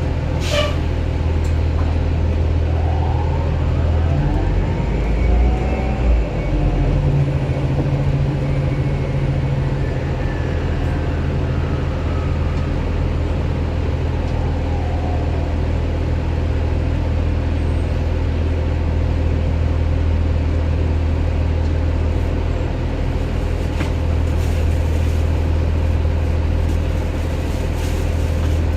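Onboard sound of a 2009 Orion VII Next Generation hybrid bus under way: a steady low drone, with the whine of its hybrid electric drive gliding up in pitch about three seconds in and falling away again around ten seconds, as the bus pulls off and picks up speed. A brief hiss near the start.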